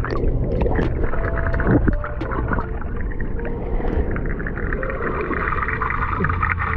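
Muffled underwater noise of a swimming pool, heard through a submerged camera: a dense low rumble of churning water from a swimmer kicking, with many small clicks and bubbling throughout.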